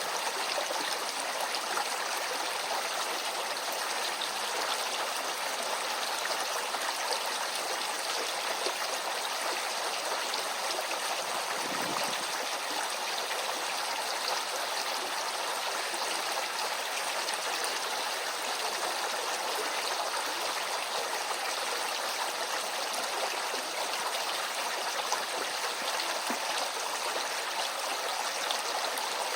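Small stream flowing steadily, its water rushing and trickling over the streambed.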